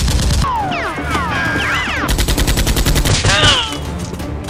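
Rapid automatic gunfire sound effect in two bursts: one cutting off about half a second in, the second starting about two seconds in and lasting about a second.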